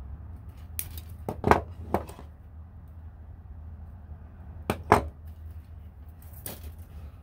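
Sharp metal clicks and snaps of hand pliers and wire cutters working thin craft wire: a cluster of clicks about a second in, two sharp snaps near five seconds, and a fainter group near the end, over a steady low hum.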